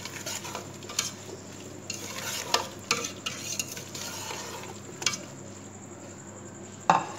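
Chopped capsicum, carrot and chicken sizzling steadily in hot oil in a metal pot while a spatula stirs them, with a few sharp knocks and scrapes of the spatula against the pot, the loudest near the end.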